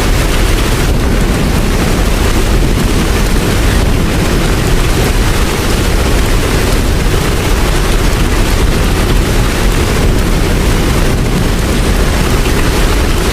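Steady rain with a strong, constant low rumble under it.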